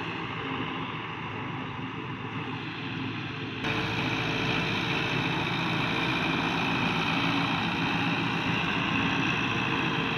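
Fiat 640 tractor's diesel engine running steadily under load as it tows a laser land-levelling blade through dry soil. A little over three seconds in, the sound changes abruptly and becomes louder and brighter, then runs on steadily.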